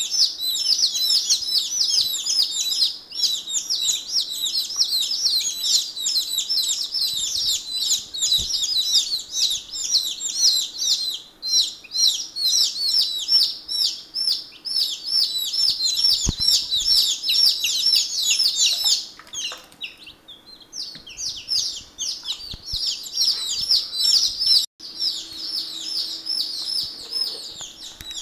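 A brood of day-old chicks peeping continuously, many rapid, high, falling peeps overlapping, with a short lull about twenty seconds in.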